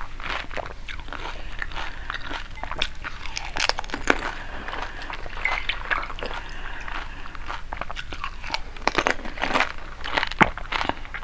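Panipuri being eaten close to the microphone: crisp fried puri shells filled with spiced water crunch and crack between the teeth, with chewing between many quick crackles. The crunching is loudest about a third of the way in and again near the end.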